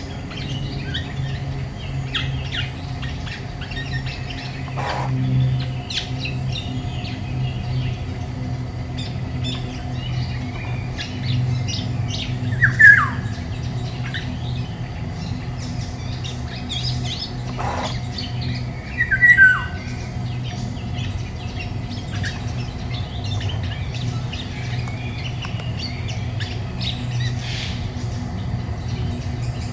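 Small woodland birds chirping and calling throughout, over a steady low hum. Two loud downward-sliding calls come a little under halfway in and again about six seconds later.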